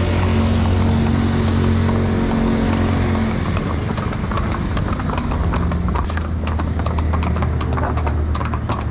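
Horses walking on concrete paving stones, their hooves clip-clopping, with the hoof clicks growing clear and frequent from about four seconds in. A motor vehicle's engine hums steadily underneath, most plainly in the first few seconds.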